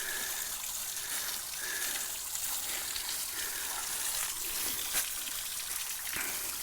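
Small trailside waterfall splashing steadily.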